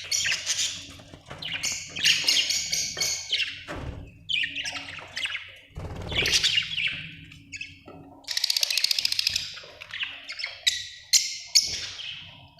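Budgerigars chirping and chattering in quick, high-pitched bouts of a second or two, with short pauses between them and harsher squawky notes mixed in.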